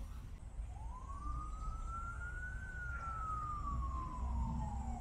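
Emergency vehicle siren wailing: one tone rises slowly for about two seconds, falls for about two and a half, then starts to rise again at the end. A steady low rumble runs underneath.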